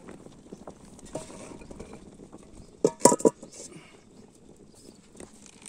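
Aluminium cooking pots clanking, a quick run of metal clinks with a short ring about three seconds in.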